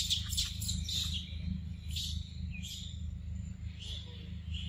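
A few short, high bird chirps, one bending in pitch, scattered through the second half, over a steady low rumble. A run of sharp crackles dies away about a second in.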